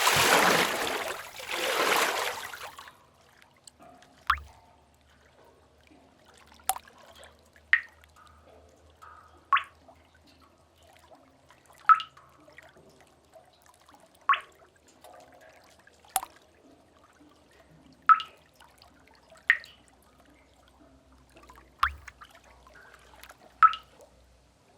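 Cave water: a loud splashing wash of water swells twice over the first three seconds. Then single water drops plink into a pool, about eleven of them at uneven intervals of one to two and a half seconds, over a faint low rumble.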